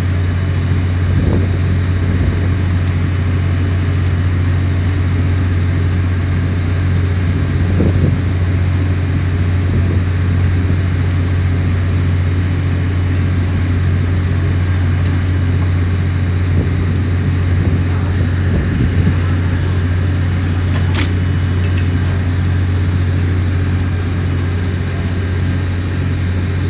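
Engine running steadily with a low, even drone, with a few faint clicks over it.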